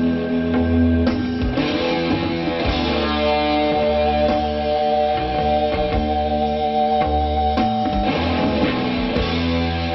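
Rock music carried by electric guitar with bass: slow, sustained chords that ring and change a few times.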